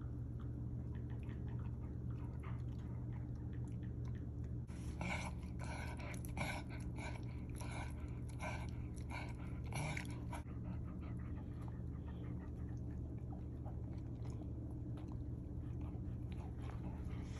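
A Goldendoodle chewing and gnawing a rawhide-free chew stick, with a burst of louder crunching and gnawing strokes from about five to ten seconds in, over a steady low hum.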